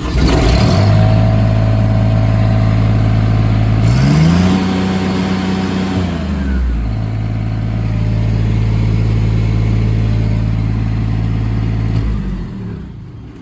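Miller Bobcat 250D diesel welder running just after start-up: it runs at a steady idle, revs up about four seconds in and holds the higher speed for about two seconds, drops back to idle, then winds down and shuts off near the end.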